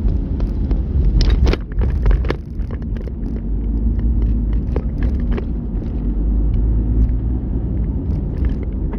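Car driving, heard from inside the cabin: a steady engine hum over a low road rumble. A cluster of sharp knocks and clatters comes between about one and two and a half seconds in, and scattered ticks follow.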